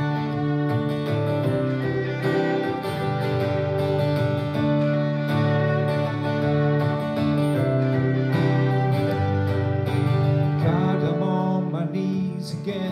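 Live acoustic band music: an acoustic guitar strumming, with a violin melody and keyboard.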